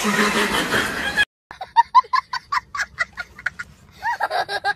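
A young boy laughing hard in quick, breathless bursts of about five a second, which turn into higher, rising squeals near the end. Before it, about a second in, a man's voice from the previous clip cuts off abruptly.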